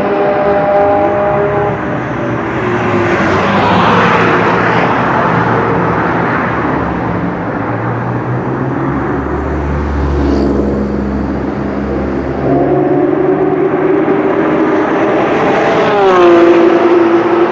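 Sports and racing cars passing one after another at speed on a circuit straight, engines running high. One car rushes by close about three to four seconds in, a deep rumbling engine passes in the middle, and near the end another car's engine note drops in pitch as it goes by.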